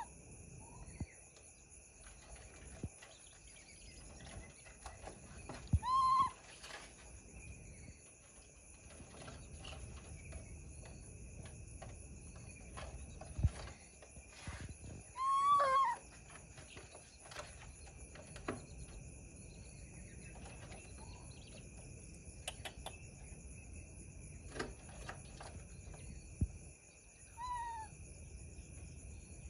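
Baby macaque giving three short, high whistle-like coo calls, each rising and falling. The middle call is the longest and drops in pitch at its end. A steady high-pitched drone and faint clicks sound in the background.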